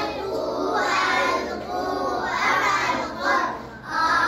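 A class of young children chanting together in unison, spelling an Arabic word aloud letter by letter as a repetition drill.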